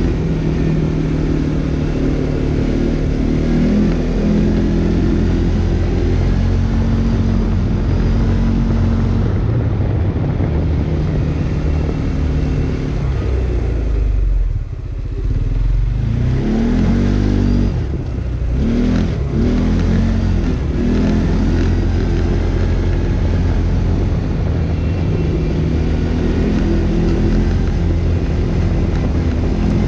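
CFMOTO CForce 450 S ATV's single-cylinder engine running steadily under way. About halfway through its note drops briefly, then rises and falls a few times before settling back to a steady pull.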